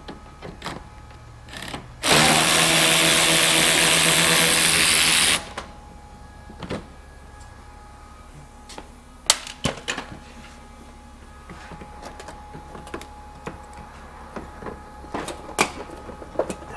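Cordless drill/driver spinning steadily for about three seconds, starting about two seconds in, backing out a Torx screw that holds the bumper at the front wheel-well liner. After it come scattered clicks and knocks of plastic trim being handled and worked loose.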